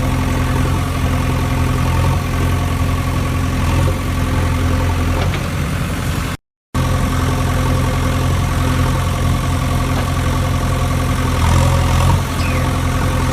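Steady engine idling sound, even and unchanging, cut off sharply for a split second about six seconds in.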